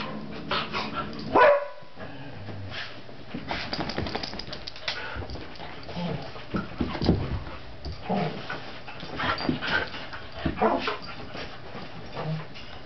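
A dog giving short, irregular barks, yips and whimpers while play-fighting with a cat, with the loudest bark about a second and a half in.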